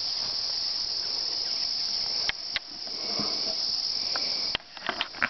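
Steady, high-pitched chorus of insects droning in summer woodland. Near the end a quick run of sharp clicks and rustles breaks in over it.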